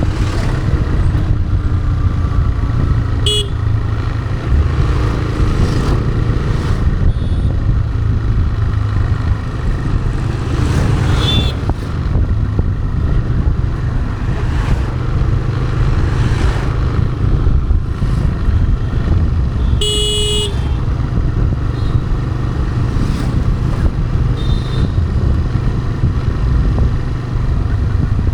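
TVS Raider 125 motorcycle's single-cylinder engine running steadily while riding, with vehicle horns honking briefly three times, the loudest about twenty seconds in.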